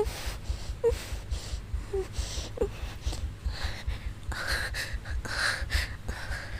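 A woman breathing heavily and close to the microphone. There are several short, soft voiced whimpers in the first few seconds, then longer, breathier exhales.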